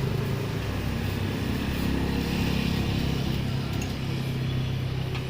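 A vehicle engine running steadily, a low hum under road and wind noise, heard from the moving vehicle.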